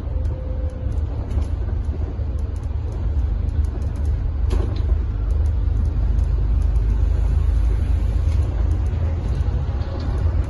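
Steady low rumble of a double-decker bus driving, heard from inside on the upper deck: engine and road noise with light rattles, and one brief knock about four and a half seconds in.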